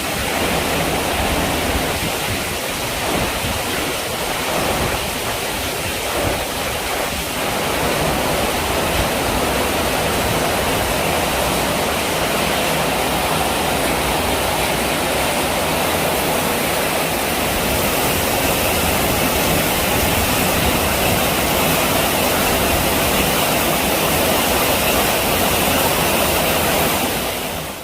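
Heavy rain pouring down steadily in a storm, with gusty wind rumbling in the first few seconds; it cuts off abruptly at the very end.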